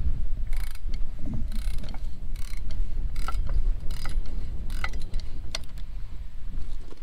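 Hand ratchet wrench clicking in short bursts, about one stroke a second, as nuts are backed off manifold studs, over a steady low rumble.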